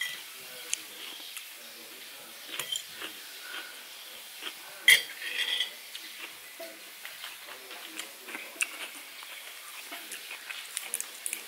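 Cutlery and dishes clinking in scattered light clicks, with one sharper clatter about five seconds in.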